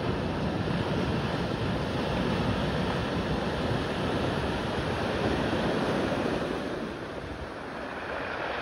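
A steady rushing noise with no pitch, easing a little about seven seconds in.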